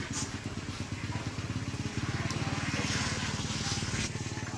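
A small engine running steadily with a fast, even putter, and a hiss swelling for a couple of seconds midway.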